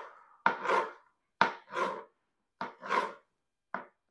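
Knife slicing a bell pepper into thin strips on a plastic cutting board: about four cuts, roughly one a second, each a sharp tap of the blade on the board with a short swish after it.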